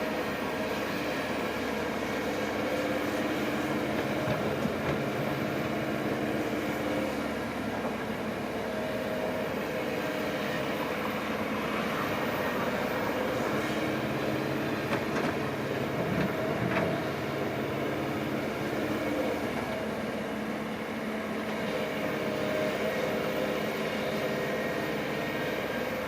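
Diesel engine of heavy earthmoving machinery running steadily, with a few metallic clanks about two-thirds of the way through.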